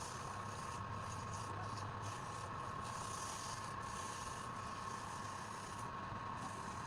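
Wood lathe running steadily with a constant whine, with a steady rubbing, scraping sound of work on the spinning wood.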